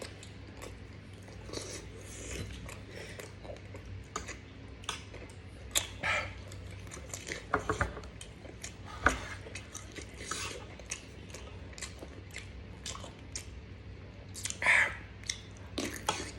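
Close-up chewing and mouth smacks from someone eating grilled barbecue, with occasional clinks of cutlery, over a faint steady low hum.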